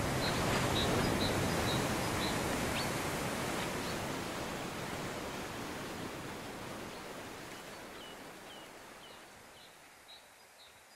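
Outdoor tropical ambience: a steady rushing hiss with a small bird giving short, repeated chirps, the whole fading out gradually to silence.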